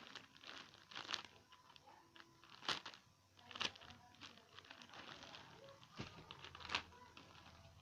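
Plastic packaging crinkling and rustling as a squishy toy is unwrapped, with a few sharper crackles.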